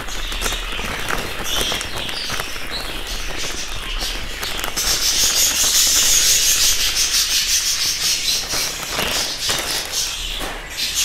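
A foil bag of crumbly egg food crinkling and rustling as it is shaken and poured out into a bowl. The crinkling is loudest about halfway through.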